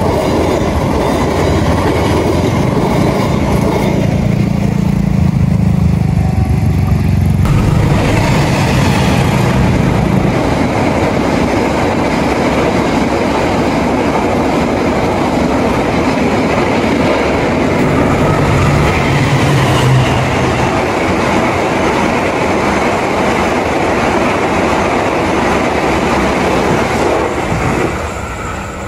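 A train passing close by, with loud continuous wheel-on-rail noise. A low engine drone sounds in the first several seconds. The noise falls away sharply near the end as the train clears.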